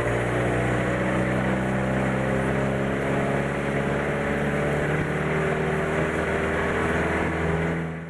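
A vehicle engine running steadily while driving, a low hum whose pitch drifts slightly up and down.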